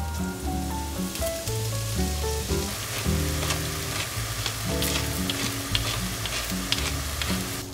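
Enoki and shimeji mushrooms sizzling as they hit hot sesame oil in a frying pan, the sizzle starting about a second in, then stir-fried with a wooden spatula that clicks and scrapes against the pan. Background music plays throughout.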